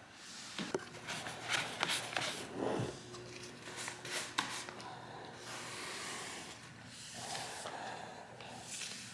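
Wood stain being wiped into a sanded hardwood floor: soft rubbing and scraping strokes of the applicator over the boards, with scattered light knocks.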